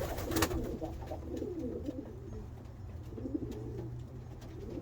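Racing homing pigeons cooing: several low coos that rise and fall in pitch, one after another.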